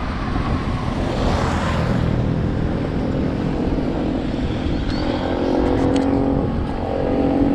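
Wind buffeting the microphone with a low rumble, and a motor vehicle's engine tone coming in about halfway and growing louder as it passes on the road alongside.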